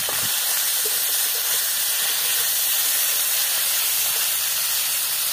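Pieces of snakehead fish frying in hot oil in a blackened iron wok: a loud, steady sizzle.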